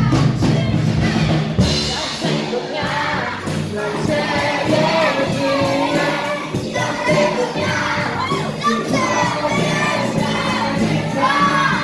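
Live band with electric bass and drums playing a song while a singer at the microphone and a room full of children sing along.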